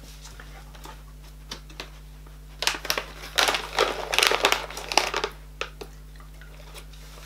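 Packaging crinkling and rustling as items are handled and rummaged in a box, in a cluster of loud crackling bursts a little before halfway through, with a few light clicks before and after.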